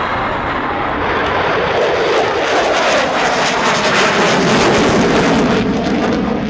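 Military jets flying past in close formation: the engine noise swells to a peak with a harsh crackle, then starts to fade near the end.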